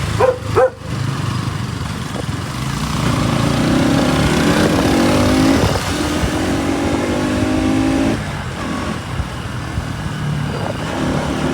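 Bajaj Pulsar NS200's single-cylinder engine pulling under way, its pitch climbing as it accelerates, easing briefly, climbing again, then dropping about eight seconds in, over steady road and wind noise.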